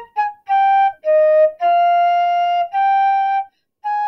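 Solo concert flute playing a phrase of separate notes: two short ones, then longer held notes. There is a short break about three and a half seconds in before the next note is held on.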